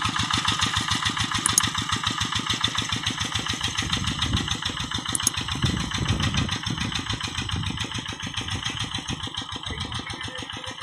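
Kubota single-cylinder diesel engine of a Quick G1000 hand tractor running steadily with an even, rapid chugging of firing pulses, growing a little quieter toward the end.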